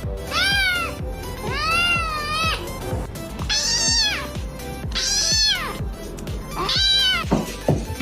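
A domestic cat meowing five times, each long call rising and then falling in pitch, over background music with a beat.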